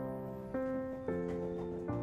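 Background music of held chords, a new chord about every half second.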